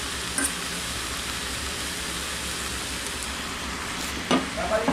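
Vegetables sizzling steadily in a stainless Saladmaster electric skillet, cooked without oil. There is a light click about half a second in and a sharper, louder knock near the end.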